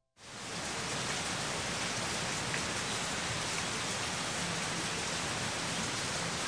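Steady rain falling on and around a tent, heard from inside it. It comes in abruptly just after the start and then holds level.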